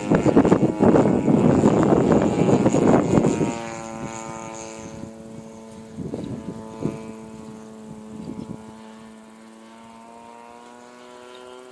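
Radio-controlled 3D aerobatic plane's motor and propeller, first under a loud rough rushing noise for about three and a half seconds, then heard as a steady droning tone while the plane flies.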